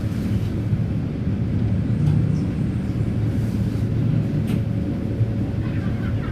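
Red Rattler electric suburban train carriage heard from inside: a steady low rumble with a thin steady hum above it, and a brief click about four and a half seconds in.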